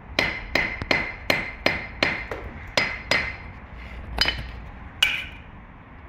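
Hammer tapping a concrete padstone down onto its mortar bed to set it level: a quick run of about nine sharp, ringing knocks, roughly three a second, then two more spaced about a second apart.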